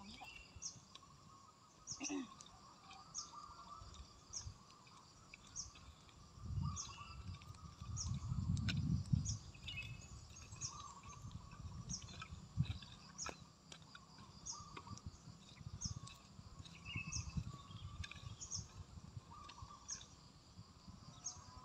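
Birds and insects: a bird repeating a short high chirp every second or so, with a brief low rumble near the middle.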